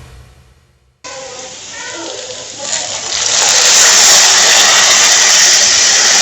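A steady, loud hissing rush that starts about a second in, builds over the next two seconds and then holds, with faint voices under it near the start.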